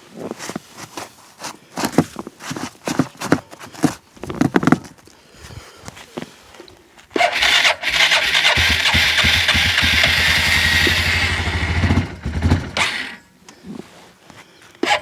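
Starter cranking the cold engine of an Arctic Cat ATV, starting suddenly about seven seconds in with a fast, even pulsing and cutting off about five seconds later. Before it come scattered knocks and handling sounds.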